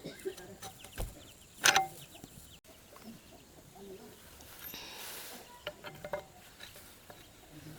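Scattered knocks and clinks, the loudest a sharp clink about two seconds in, with a brief hiss about five seconds in; chickens cluck faintly in the background.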